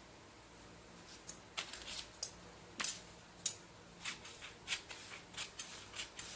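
Large scissors cutting along a marked line on a pattern piece: a series of short, sharp snips about two a second, starting about a second in.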